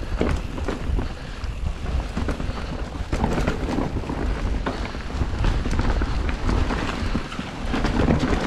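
Wind rumbling on the microphone of a mountain bike descending fast over a dirt trail, with frequent rattles and knocks from the bike over rough ground.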